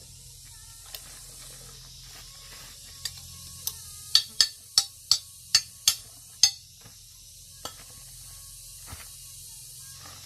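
A steady high hiss with a run of about seven sharp clicks, roughly two to three a second, starting about four seconds in, and a few fainter clicks before and after.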